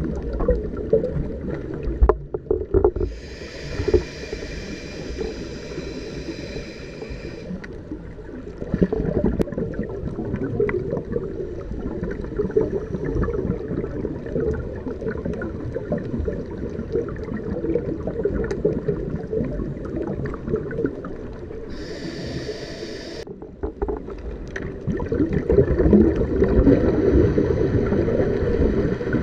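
Underwater sound picked up through a diving camera's housing: a constant muffled rumble of water and scuba bubbles. Twice there is a hissing rush of air, a long one a few seconds in and a short one about two-thirds of the way through, typical of a diver's regulator.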